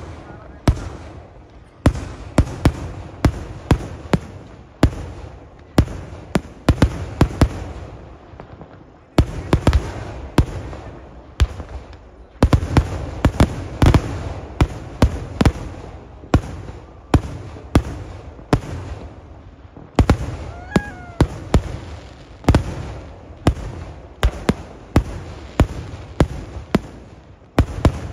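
Fireworks barrage: dozens of sharp explosive bangs in rapid succession, several a second at times, over a continuous rumble, as shells launch and burst overhead. The barrage gets denser and louder about halfway through.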